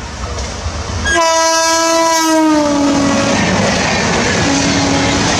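WAP7 electric locomotive's horn sounding about a second in as it runs past at speed, its pitch sliding down as it goes by, then a shorter, lower note near the end. The rush and clatter of the express coaches passing close by continue under it.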